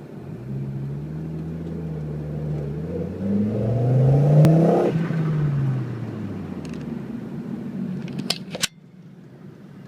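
1998 Volvo S70 T5's turbocharged five-cylinder engine, on its stock TD04HL-16T turbo with an OBX turboback exhaust. It runs, is revved up to a peak about four and a half seconds in, and falls back as the throttle closes, with the turbo fluttering on lift-off. A few sharp clicks come near the end, then the sound drops off suddenly.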